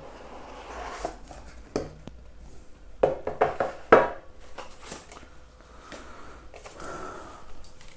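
A keyboard's cardboard box and its packaging being opened and handled: scattered knocks and scrapes with rustling, the loudest knock about four seconds in.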